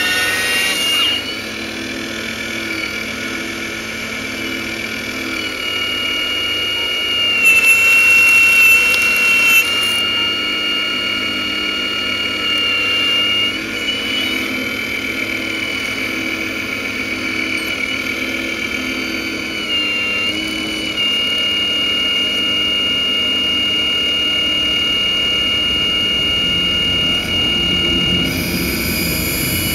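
Radio-controlled Hitachi Zaxis 870 LCH model excavator digging: its motors give a steady, high-pitched whine that steps up and down in pitch as the boom, arm and bucket move. It is louder, with an added hiss, for a couple of seconds about a quarter of the way in.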